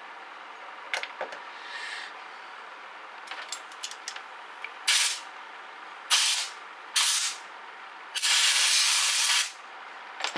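Compressed-air blow gun blasting dust out of a cordless mini angle grinder's faulty trigger switch: three short hisses of air, then one longer blast of over a second. A few small clicks of handling the parts come before.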